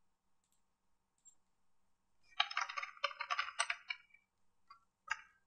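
Computer keyboard typing: a quick run of keystrokes lasting about a second and a half, then a single keystroke near the end.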